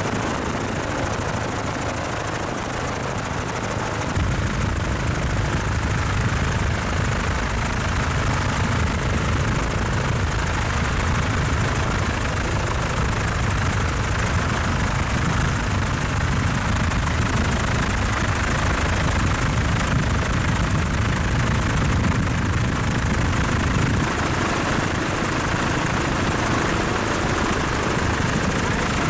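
Helicopter noise heard from on board: a steady engine and rotor drone that grows heavier in the low end about four seconds in.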